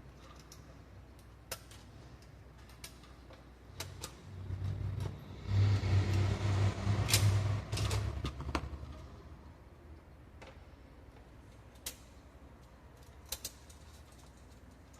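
Small sharp clicks and knocks of plastic printer parts being handled during disassembly, with a louder low buzzing rattle for a few seconds in the middle.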